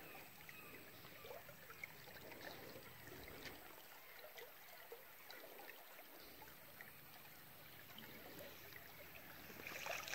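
Faint trickling of river water with small splashes, then, near the end, louder splashing and water pouring and dripping as a cast net is hauled up out of the river.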